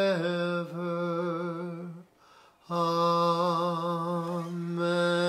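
A man chanting the liturgy unaccompanied on one steady pitch: a drawn-out sung 'forever', a short breath about two seconds in, then a long held note with slight vibrato.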